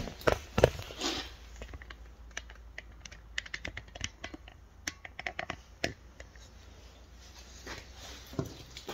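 A run of light clicks and taps, with a few louder knocks in the first second.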